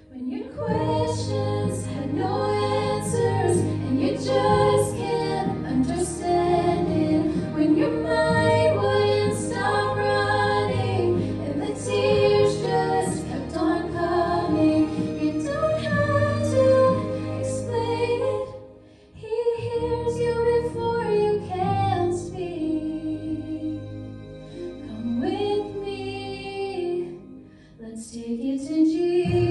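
Two women singing a gospel duet into handheld microphones over a steady low accompaniment. Near the end, one voice carries on alone.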